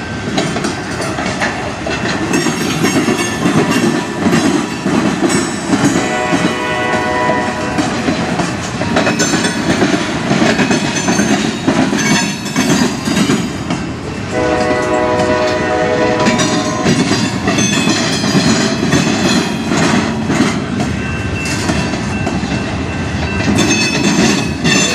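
Freight train cars rolling past, with a steady rumble and clatter of steel wheels on the rails. About six seconds in, and again about fourteen seconds in, a pitched tone sounds over it for a couple of seconds.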